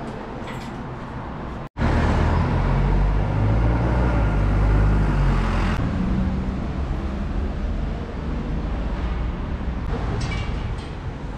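Street noise with a motor vehicle's engine rumbling close by. It starts suddenly about two seconds in, is loudest in the middle, then eases to a steadier traffic background.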